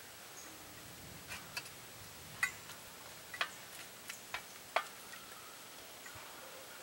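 A spoon knocking and scraping against a cast-iron Dutch oven as chicken and rice are stirred: a few faint, irregular clicks.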